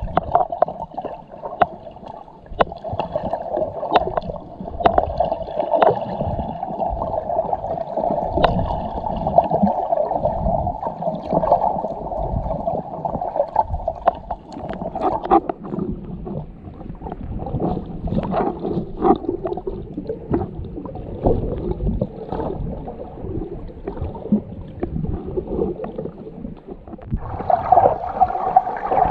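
Muffled underwater sound picked up by a camera held below the surface: a steady rushing of moving water, dotted with many sharp clicks and knocks. Partway through, the rushing drops lower and softer, then comes back louder near the end.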